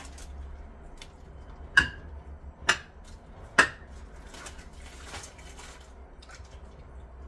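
Kitchenware being handled: three sharp clinks a little under a second apart, the first with a brief ringing tone, over faint rustling.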